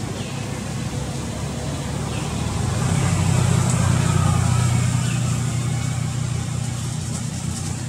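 Low rumble of a motor vehicle's engine passing, swelling about halfway through and then easing, over a steady hiss.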